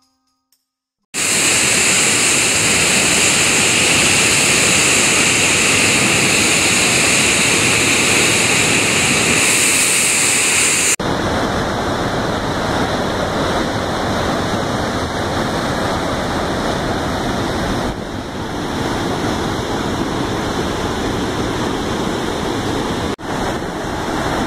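Floodwater rushing out of open dam spillway gates and churning in the river below: a loud, steady rush of water that begins after a moment of silence. Its tone changes abruptly about eleven seconds in, and it dips briefly just before the end.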